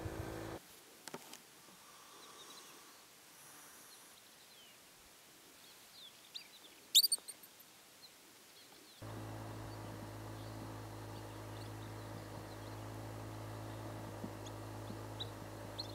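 A pika's short, high-pitched squeak about seven seconds in, sweeping upward, with a fainter squeak just before it. A faint steady hum comes in after about nine seconds.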